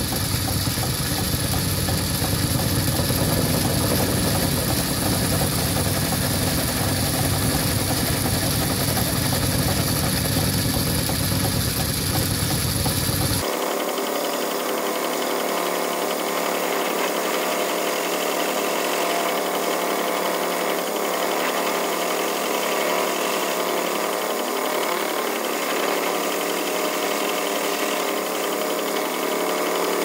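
Small metal lathe running, its tool facing down the end of a metal barrel nut held in a four-jaw chuck: a steady drone of motor and cut. The deeper hum drops away abruptly about halfway through.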